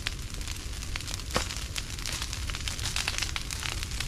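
Brush pile of cut leafy branches burning, crackling and popping with many sharp snaps over a low steady rumble, one louder snap about a second and a half in.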